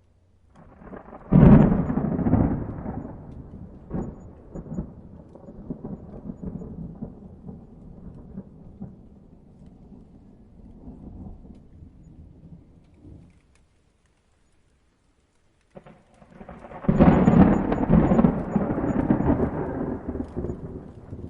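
Two rolls of thunder: a sharp crack about a second in rumbles away slowly for over ten seconds, then after a short near-silent gap a second long rumble builds up near the end.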